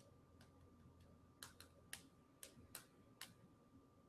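Near silence broken by faint, irregular taps, about six in two seconds and a couple more near the end: fingertips tapping a smartphone touchscreen.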